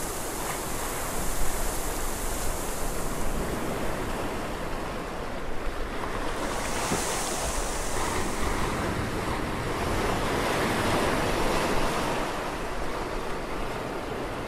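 Sea waves washing, a steady rushing noise that swells and eases every few seconds.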